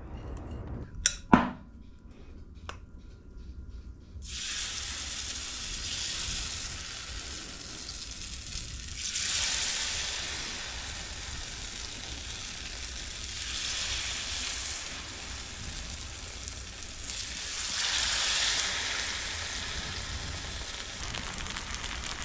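Beer-battered tailor fillets frying in a pan, a steady sizzle that starts about four seconds in and swells and eases a few times. Before it come a few sharp clicks and one loud knock about a second in.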